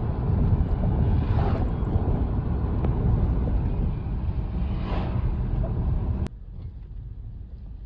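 Low rumble and road noise of a car driving, with two brief swells, cutting off abruptly about six seconds in to a much quieter hiss.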